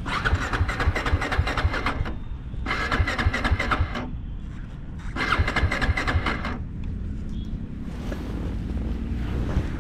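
Royal Enfield Guerilla 450's single-cylinder engine being cranked on the electric starter three times in a row, each try about one to two seconds long, without the engine catching. It will not start after the bike has tipped over.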